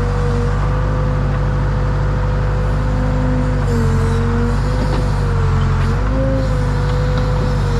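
Case 580 Super K backhoe loader's diesel engine running steadily, with a higher whine over it that dips and rises in pitch a few times.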